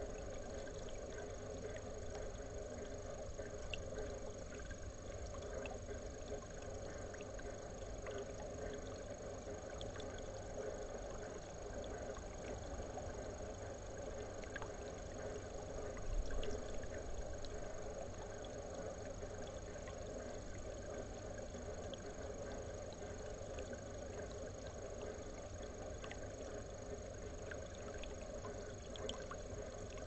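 Steady low background noise with a faint, steady high-pitched tone and scattered faint clicks, and a soft thump about sixteen seconds in.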